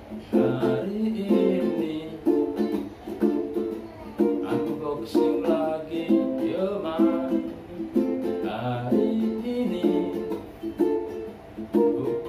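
A ukulele strummed in a steady rhythmic chord pattern, with a man's voice singing along over it.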